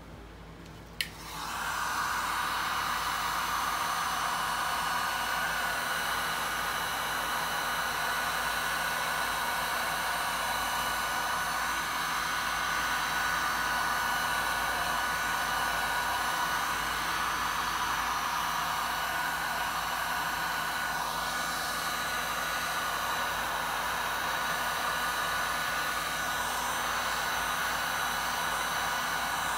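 Handheld heat gun clicked on about a second in, then running steadily, its fan blowing hot air over wet epoxy resin with a steady whir and a few faint whining tones.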